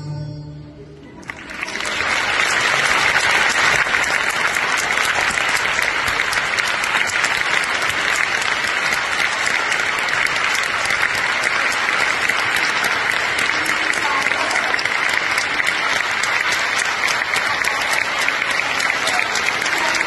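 The last note of the ballet music dies away, and about a second and a half in an audience breaks into applause that builds quickly and then goes on dense and steady.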